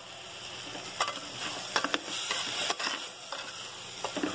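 Dried small fish and chopped banana flower sizzling in oil in an earthenware pot, stirred with a ladle that knocks and scrapes against the pot several times.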